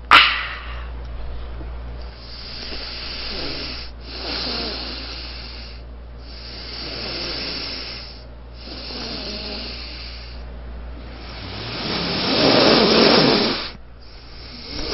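Someone breathing heavily in long, slow breaths of about two seconds each, with short pauses between them. The breath near the end is the loudest.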